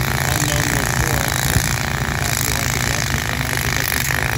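Utility truck engine idling steadily, a continuous low hum.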